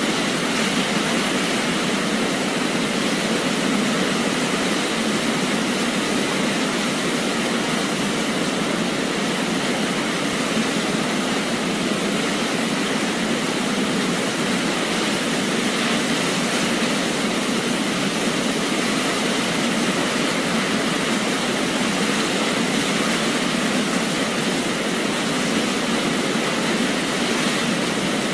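Waterfall: a steady, even rush of falling water, unchanging throughout, with little deep rumble.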